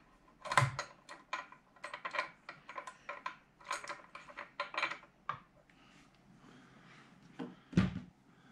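Parts and hardware of a quilting machine being handled during assembly: a quick, irregular run of light clinks and knocks, then a single heavier thump near the end.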